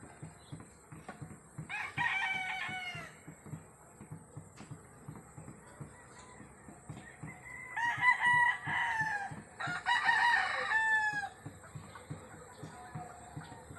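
Rooster crowing three times: once early, then twice in quick succession past the middle.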